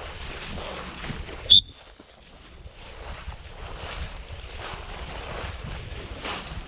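Wind buffeting the microphone in an open field, a steady rushing noise. About a second and a half in there is one sharp, very loud, brief high-pitched sound, and the recording dips in level just after it.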